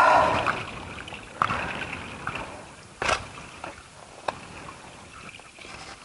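Spade digging into soil: three scraping strikes, about a second and a half apart.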